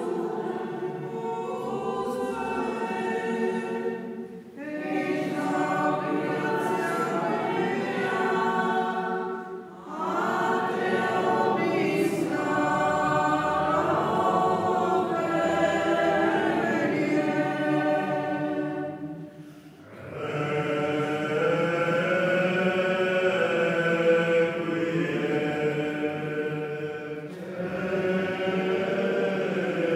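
Choir singing slow, sustained phrases, breaking off briefly three times between phrases.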